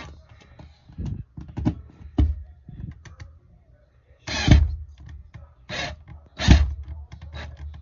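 Cordless drill/driver tightening screws into a wall cable pass-through plate in short trigger bursts, with clicks and knocks between them. The loudest bursts come about four and a half and six and a half seconds in.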